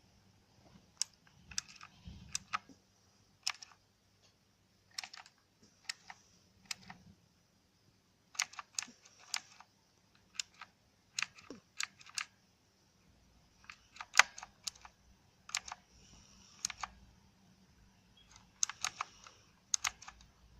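Keys on an Aukey KM-G3 mechanical keyboard with Outemu Blue switches being pressed, giving sharp clicks that come singly and in short irregular clusters.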